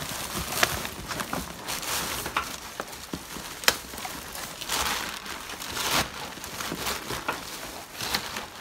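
Plastic bags rustling and crinkling as gloved hands rummage through them, irregular, with a few sharp clicks.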